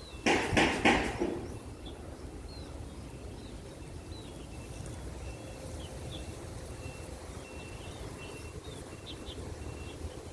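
Three short, loud noisy bursts in the first second and a half, then small birds chirping repeatedly over a steady low outdoor background noise.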